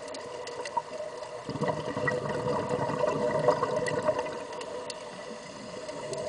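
Underwater recording of air bubbling and crackling up from Sea Trek diving helmets' air exhaust, over a steady hum. The bubbling swells about a second and a half in and eases off near the end.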